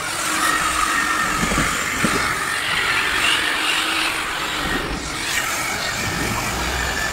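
Corded electric rotary polisher with a foam pad running steadily with a whine, its pad buffing the painted fuel tank and fairing of a motorcycle: the machine-polishing stage of paint correction.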